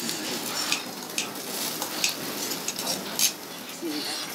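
Beef short ribs sizzling on a tabletop barbecue grill, a steady hiss, with a few light clinks of chopsticks and dishes.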